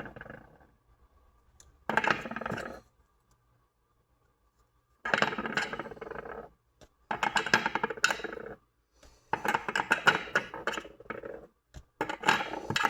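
Brass 30-30 Winchester rifle cases clinking and rattling against each other as they are handled, in about five separate bursts of one to two seconds each.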